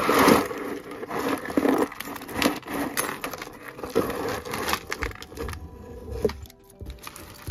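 A heap of mixed costume jewelry (beads, chains, bracelets, metal pieces) poured out onto a tray, clattering and clinking: a dense clatter in the first half second, then scattered clinks.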